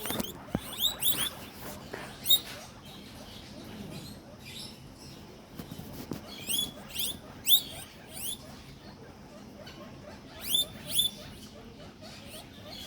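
Guinea pigs wheeking: bouts of short, high, rising squeals in quick runs, a few seconds apart, with softer squeaks and rustling between. These are the excited begging calls guinea pigs make when someone comes in, in expectation of food.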